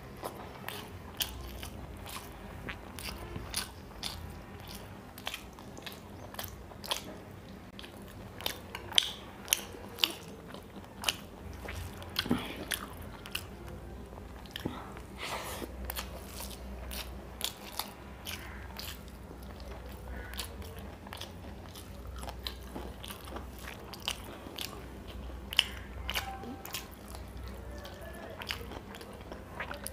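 Close-up mouth sounds of a man eating rice and curry by hand: chewing and biting with many irregular, sharp wet clicks and smacks, some much louder than others. A low steady hum runs underneath.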